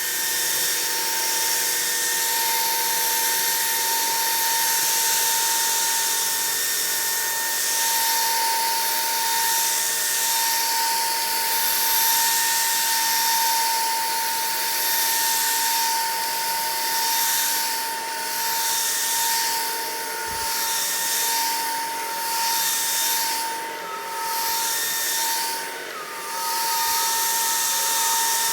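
POWEART cordless stick vacuum running: a steady high motor whine over a hiss of rushing air, dipping briefly several times in the second half.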